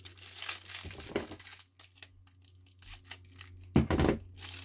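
Knife packaging being torn open and crumpled by hand, in short rustling strokes, with a quieter pause and then a louder burst of tearing and handling about four seconds in.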